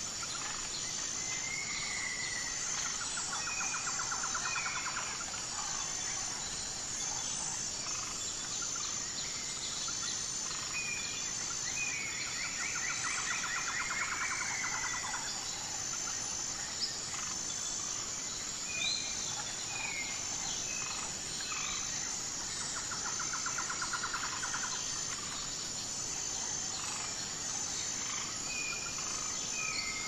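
Several birds calling over a steady, high-pitched drone of insects. Short whistled notes and slurred glides come and go, and a rapid trill recurs three times, about every ten seconds.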